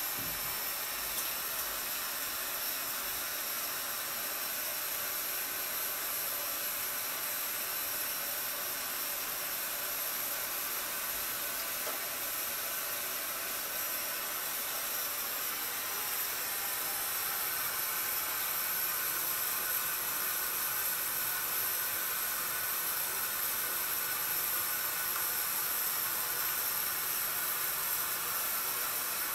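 Steady, even hiss with a thin high whine over it, growing slightly louder about halfway through.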